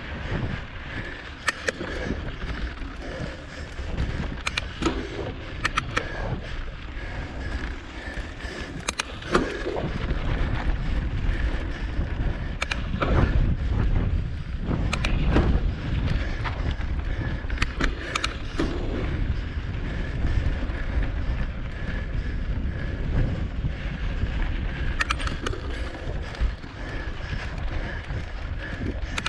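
Mountain bike ridden fast over rocky dirt trail, heard from a camera on the bike: a steady rumble of tyres and wind on the microphone, with frequent sharp rattles and clicks as the bike bounces over stones.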